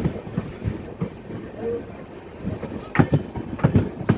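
Train running on the rails, its wheels knocking irregularly over the track, with a run of louder knocks about three seconds in.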